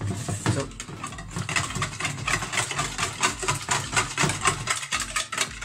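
Eggs, milk, sugar and salt being beaten together in a bowl for blini batter: a rapid, rhythmic clatter.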